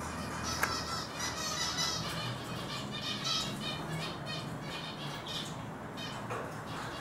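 Eurasian siskins twittering: repeated fast, warbling runs of high notes, with a single sharp click about half a second in.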